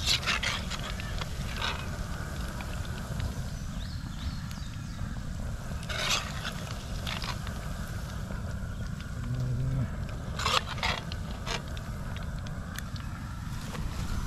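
Fish nuggets frying in hot oil in a cast-iron pot over a propane burner: a steady low rush with sizzling. A metal skimmer scrapes and clicks against the pot several times as the pieces are lifted out.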